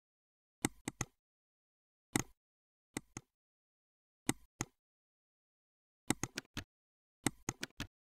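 Computer mouse clicks, sharp and short, singly and in quick pairs with silence between, and faster runs of clicks in the last two seconds.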